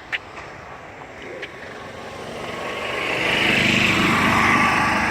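A golf cart approaching and passing close by, its motor getting steadily louder from about two seconds in.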